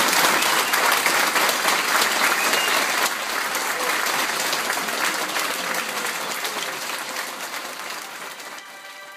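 A large indoor audience applauding, a dense patter of many hands clapping that gradually fades away toward the end.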